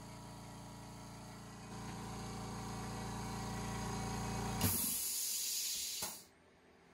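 California Air Tools twin-tank air compressor running with a steady hum that grows louder about two seconds in. After about four and a half seconds the motor stops, and a hiss of released air follows and cuts off about a second and a half later.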